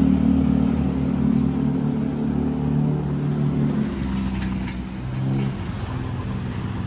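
Street traffic, with a motor vehicle engine running close by in a steady low hum whose pitch shifts about four to five seconds in.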